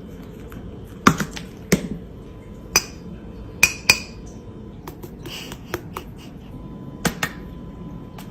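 Sharp, irregularly spaced clicks and taps, about a dozen, over a steady low room hum.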